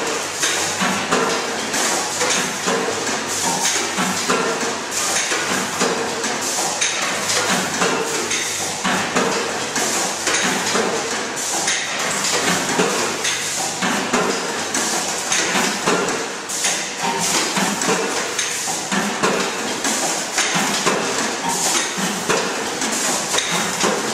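Vertical form-fill-seal bagging machine with its grain weigher, an MDU-NOTIS-01M, running: a dense, steady clatter of many quick knocks and clicks.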